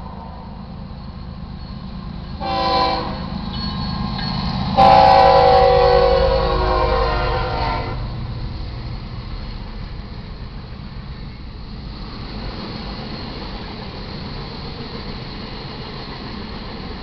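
Air horn of a freight train's lead locomotive, a GE ES44C4, sounding a short blast and then a long blast as it reaches the grade crossing, the end of the standard crossing signal. The long blast is the loudest part, over the deep rumble of the locomotives passing. It then gives way to the steady rolling rumble of the freight cars going by.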